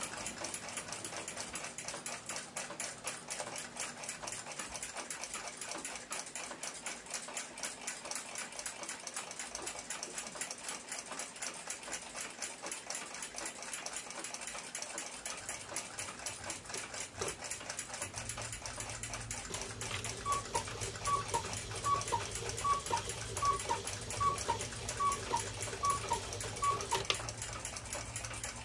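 Fast, steady ticking of mechanical clocks running in a clock workshop. A low hum comes in about halfway through, and near the end there is a run of about nine short falling chirps, evenly spaced less than a second apart.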